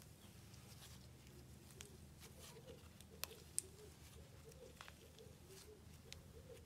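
Thick, fluffy slime being squeezed and stretched by hand, giving faint sticky clicks and small pops, with two sharper pops about three seconds in.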